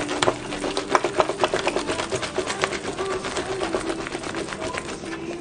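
Garlic cloves rolled inside a silicone garlic-peeler tube, pressed back and forth under the palm on a wooden cutting board: a rapid, uneven run of small crackling clicks as the papery skins break loose.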